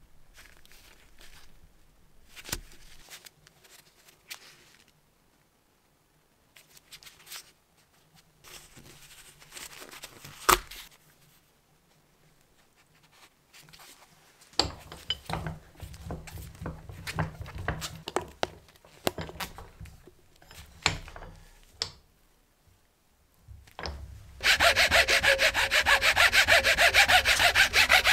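Scattered handling knocks and rubbing of plastic parts, then, about three-quarters of the way through, a hacksaw starts cutting through the plastic Airmatic compressor air filter housing clamped in a vise. The sawing is loud, with quick, steady back-and-forth strokes.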